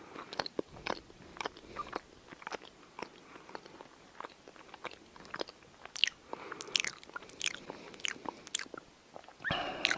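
Irregular crunching clicks, a few a second, close to the microphone.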